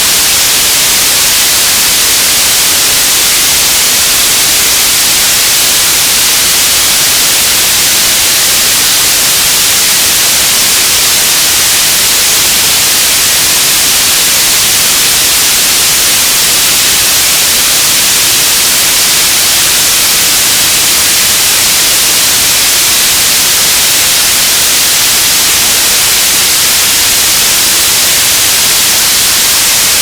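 Radio static: a loud, steady hiss with no breaks, heavier in the high end.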